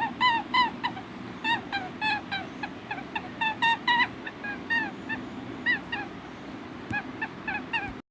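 A flock of farm fowl calling, many short, repeated calls a second overlapping each other over a steady background noise.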